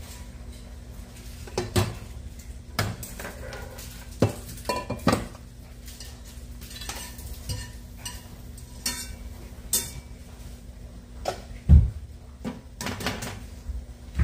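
Cookware and a metal utensil clinking and knocking against a skillet and pans: scattered, irregular strikes, the loudest a heavy knock about twelve seconds in. A steady low hum runs underneath.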